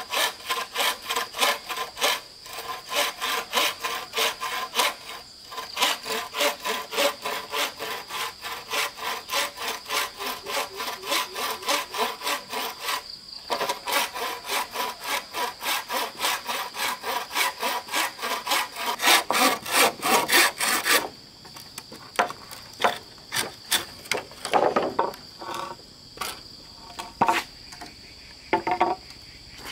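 Wooden frame saw cutting through a bamboo pole in fast, even back-and-forth strokes, about two to three a second. About two-thirds of the way through the sawing stops and gives way to scattered knocks and scrapes. A steady high insect drone sits underneath.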